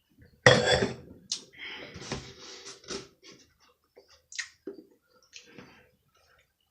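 Close-up eating sounds: a loud bite about half a second in, followed by bursts of chewing.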